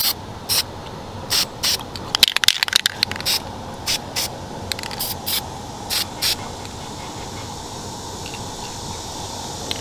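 Aerosol spray paint can (Krylon) hissing in about ten short, quick bursts as paint is sprayed through a stencil, with a brief clatter a little after two seconds in. The bursts stop a little after six seconds in, leaving a faint steady insect chirring.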